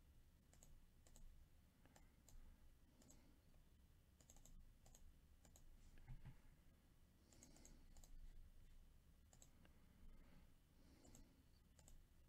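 Faint clicks of a computer mouse, some in quick pairs like double-clicks, scattered through near silence.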